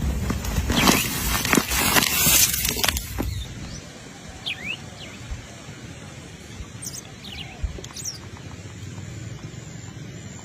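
Loud crackly noise with many sharp clicks for about the first three and a half seconds, then a quiet outdoor background with a few short, high, rising bird chirps.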